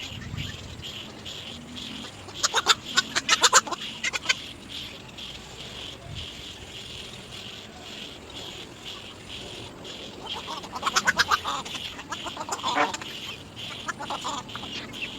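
Little egrets calling at the nest: two bursts of rapid, harsh, chattering calls, each about two seconds long, a couple of seconds in and again past the middle, over a steady high-pitched background drone.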